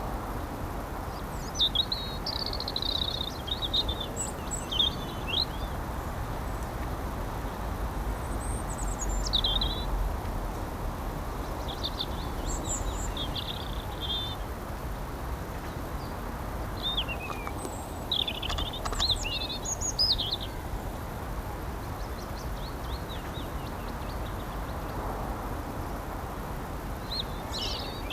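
Small garden birds chirping and twittering in short scattered phrases, with a busier burst of calls a little past halfway, over a steady low background rumble.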